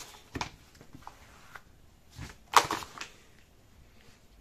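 Hands handling and turning floured dough on a silicone baking mat: a few soft taps and thumps, with one louder knock about two and a half seconds in.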